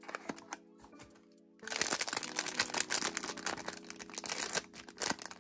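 Foil blind-box bag crinkling and tearing as it is ripped open by hand, starting about one and a half seconds in, over soft background music with sustained notes.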